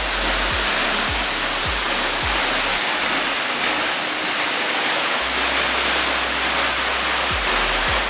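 Waterfall's steady rush of falling water, mixed with background music that has a steady low beat.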